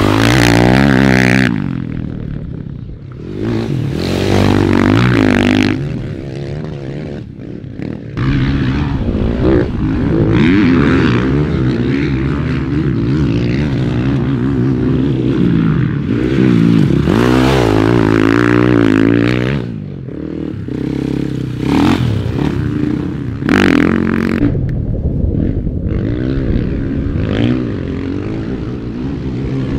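Dirt bike engines revving hard and dropping off again and again as the bikes ride by, the pitch climbing and falling with each throttle change and gear shift. The sound swells and fades several times as riders come past.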